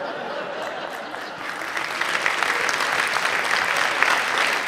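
Studio audience applauding, swelling in and then holding steady.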